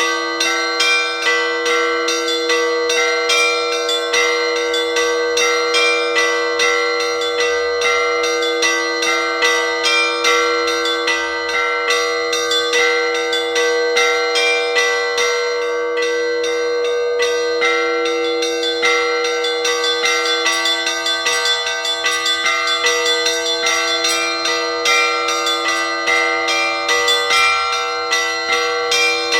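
Orthodox church bells ringing a peal: many smaller bells struck in quick succession over the sustained ringing of a larger bell.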